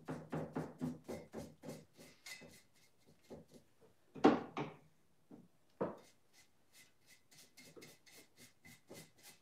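Paintbrush scratching and dabbing on a spackle-textured jug, a quick run of short strokes at about four a second. Two louder knocks come about four and six seconds in.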